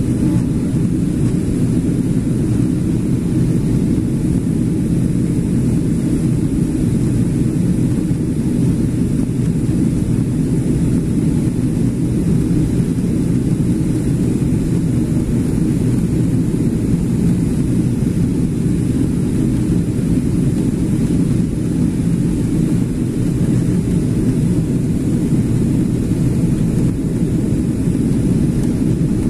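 Steady low rumble of a Boeing 777-300ER in flight, its GE90 jet engines and rushing air heard inside the passenger cabin.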